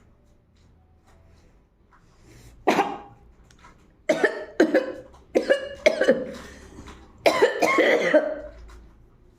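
A woman coughing: a run of about six short, sharp coughs beginning a few seconds in, the last one longer. It is a cough that comes in place of the sneeze she is trying to bring on.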